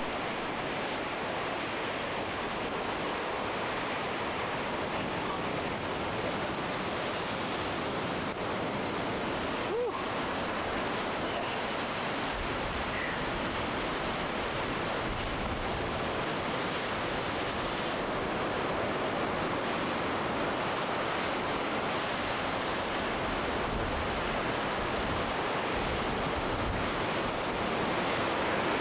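Steady wash of sea surf, with wind on the microphone.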